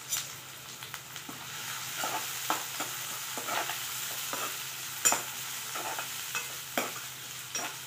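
Chopped onions sizzling in hot oil in a steel kadai, stirred with a metal spatula that scrapes and clinks against the pan a dozen or so times at irregular intervals, the loudest clink about five seconds in.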